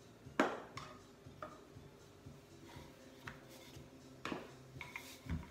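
Wooden rolling pin and hands knocking and tapping on a granite worktop as shortcrust pastry is laid out: one sharp knock about half a second in, then scattered lighter taps, a few more near the end.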